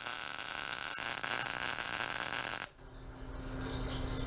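MIG welder arc sizzling as it plug-welds a hole in a steel truck frame rail, then cutting off suddenly about two and a half seconds in. A faint steady hum remains after the arc stops.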